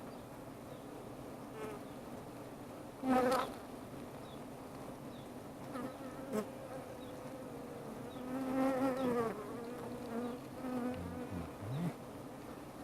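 Honeybees buzzing around the hive: a steady hum of many bees. Single bees fly close by, louder and wavering in pitch, about three seconds in and again past the middle.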